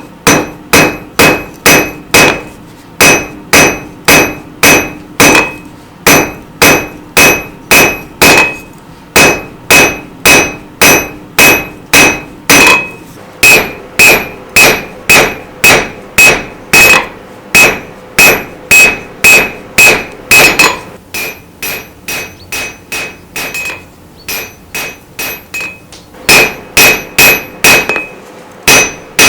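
Rounding hammer striking a steel bar on an anvil, about two blows a second, each blow ringing with a clear metallic tone. The blows come in runs with short pauses and are lighter for a few seconds past the middle.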